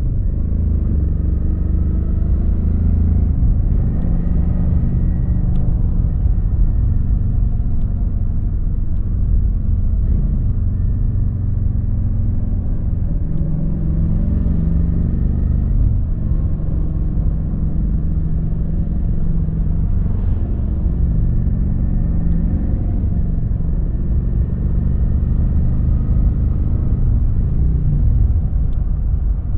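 Kawasaki VN900 (Vulcan 900) V-twin engine running under way, a steady low rumble whose pitch rises and falls several times with the throttle.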